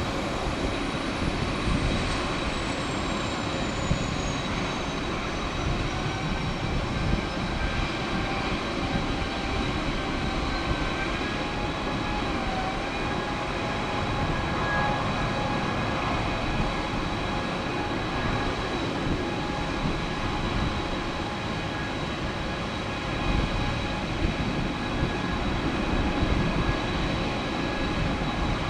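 Boeing 767-300ER jet engines running with a steady roar and several steady whining tones. A high whistle falls in pitch over the first several seconds.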